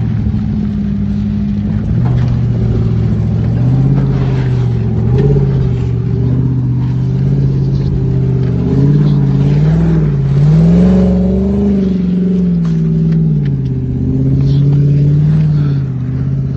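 Off-road vehicle's engine running loud and close, its pitch rising and falling with the throttle, climbing highest about two-thirds of the way through.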